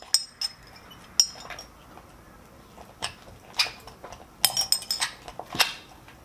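Scattered clinks of a utensil against a glass mixing bowl as slime is stirred, with a quick run of clinks about two-thirds of the way in.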